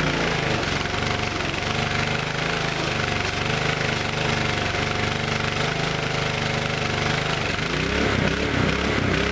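Small gasoline engine of a homemade pressure washer running. It holds a steady speed, then about eight seconds in starts surging, its pitch rising and falling about twice a second. The owner takes this pulsating for a poorly running engine whose carburetor needs cleaning.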